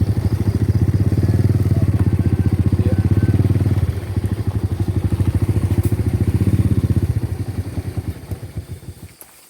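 A small engine running steadily, with a brief drop in level about four seconds in. Near the end it slows down and stops, as when it is switched off.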